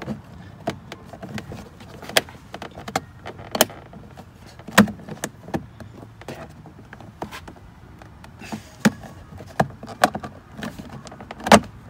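Aftermarket door pocket being pressed into a Jeep Wrangler JK's door panel, its tabs snapping in: a string of irregular clicks and knocks, the loudest about five seconds in and again near the end.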